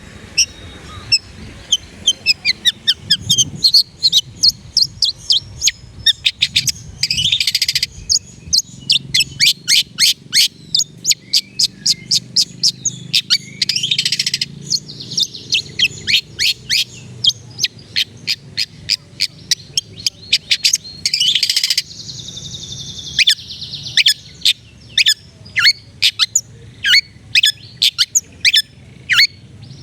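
Long-tailed shrike (cendet) singing: a quick, steady run of sharp, high notes that fall in pitch, about two to three a second. The run is broken three times by a short harsh buzz, then by a longer one near the end.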